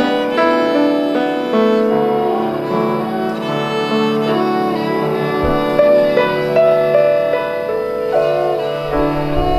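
Violin, cello and a Yamaha grand piano playing together as a trio, in held notes that change every half second or so.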